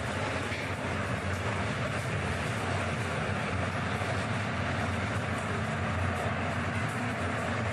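Steady, deep roar of tornado wind heard through window glass, a low rumble with a hiss on top that holds an even level.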